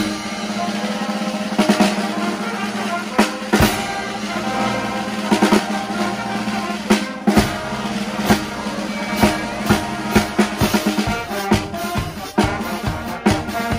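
A street band of saxophones and brass playing, with snare drum, bass drum and hand cymbals keeping the beat. A low note is held steadily underneath.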